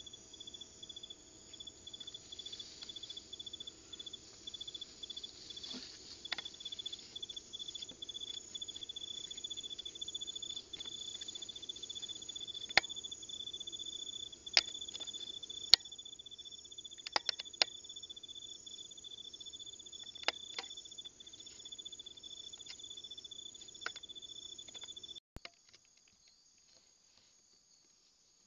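Night insects trilling steadily on one high pitch, with a handful of sharp clicks and snaps over it, the loudest in the middle stretch. The trill cuts off abruptly near the end, leaving near silence.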